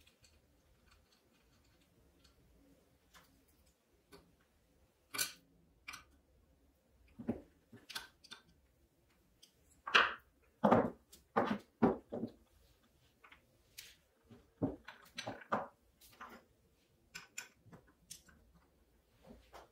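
Small metal parts of an old hand drill clicking and knocking as they are handled and fitted together. There are scattered sharp clicks, fewest in the first few seconds and most frequent about halfway through.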